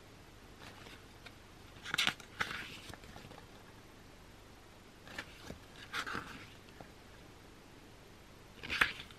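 Paper pages of a photo book being turned by hand: a short rustle and swish every few seconds, about four page turns.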